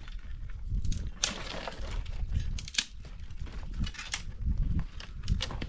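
Dry brushwood branches snapping and rustling as they are broken up and handled, a scatter of sharp, irregular cracks.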